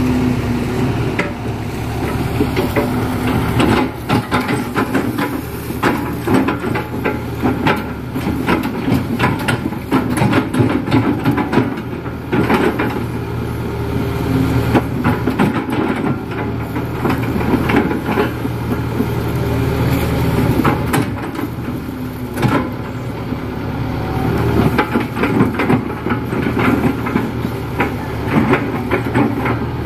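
Kato HD512E crawler excavator's diesel engine running steadily under working load, with frequent knocks and clanks as the bucket digs and shapes a mud pond bank.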